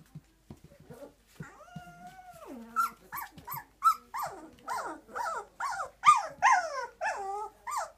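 Four-week-old puppies whining and yelping: one drawn-out whine that slides down in pitch, then a quick run of short yelps, each falling in pitch, about two or three a second.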